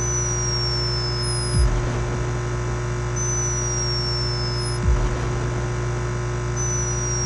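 A sleeping hummingbird snoring: three thin, high whistles, each falling slightly in pitch over about a second and a half, spaced about three seconds apart. Under them runs a loud steady hum, which is noise from the camera's microphone with its sensitivity turned up.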